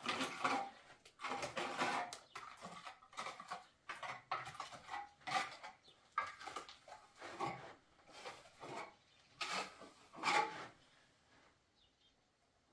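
Irregular scraping and scooping strokes of wet plaster: a trowel taking plaster off a hand-held board and spreading it across a mud wall, with plaster scooped from a plastic basin. The strokes come every half second or so, with the loudest about ten seconds in, and die away near the end.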